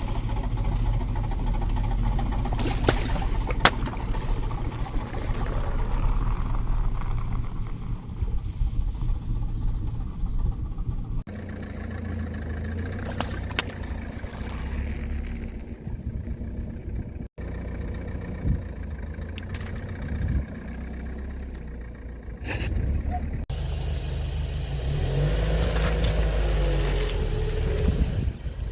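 A car's engine running at low speed as it rolls over objects, with a few sharp cracks and pops as things snap or burst under the tyres. The sound comes in several short takes cut together.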